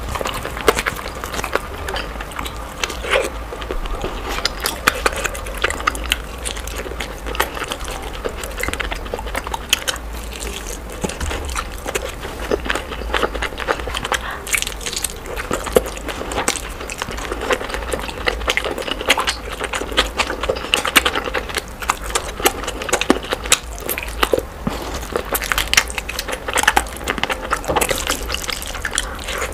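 A person's close-miked eating sounds played at double speed: a dense run of wet chewing, lip smacks and clicks from eating rice and meat by hand.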